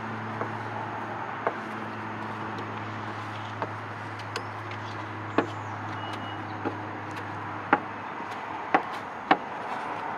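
Scattered sharp clicks and taps from hands and a plastic squeegee working protection film against a car's sheet-metal cargo door, over a steady low hum that stops about eight seconds in.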